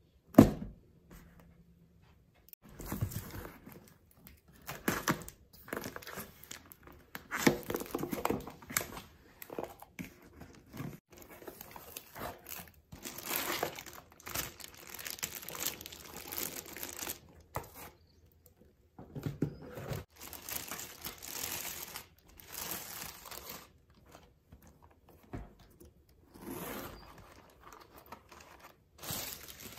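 Plastic bag and crumpled packing paper crinkling and rustling in irregular bursts as a leather handbag is unpacked from a cardboard box and slid out of its plastic wrap, with one sharp knock at the very start.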